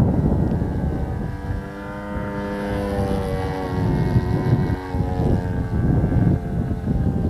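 Small engine of a radio-controlled biplane in flight, a steady pitched drone that comes through most clearly in the middle, partly buried under heavy wind rumble on the microphone.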